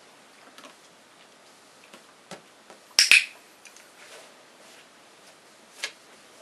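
Dog-training clicker giving a sharp, loud double click (press and release) about three seconds in, the marker signal of clicker training. Fainter single clicks come before and after it.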